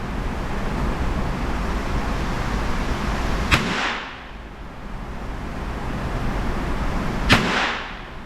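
.22 rimfire single-action revolver with a 6.5-inch barrel fired twice, about four seconds apart, each a sharp crack with a short ring-out. A steady background hiss lies between the shots.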